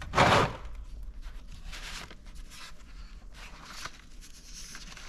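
Plastic hardware bags being handled: a short loud burst of crinkling just after the start, then scattered rustling and light clicks of small parts.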